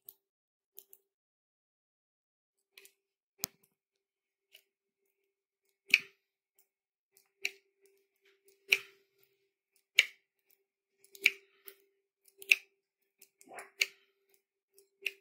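Sharp metallic clicks from a Jacobs hand chuck and end-threaded intramedullary pin being turned by hand into a dog's tibia. A few scattered clicks at first, then from about six seconds in a regular click about every second and a quarter, one with each turn of the chuck.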